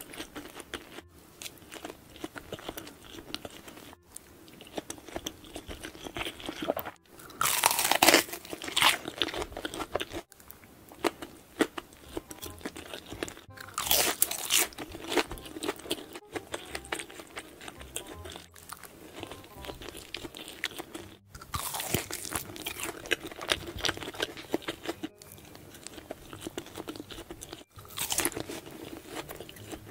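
Close-miked eating of crispy fried chicken: four loud crunching bites, roughly seven seconds apart, with chewing and small mouth clicks between them.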